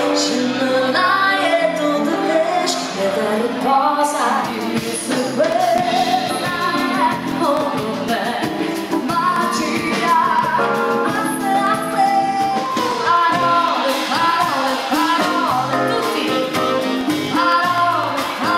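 A woman singing a pop song with a live band: saxophone, electric bass, drum kit and keyboards.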